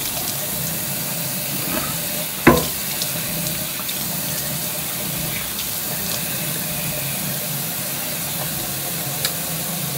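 Bathroom sink tap running steadily while cool water is splashed onto the face to rinse off cleanser, with one brief knock about two and a half seconds in.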